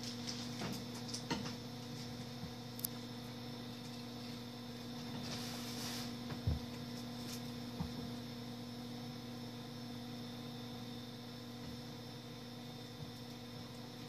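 Steady electrical mains hum, with a few faint clicks, a brief rustle and one soft thump about six and a half seconds in.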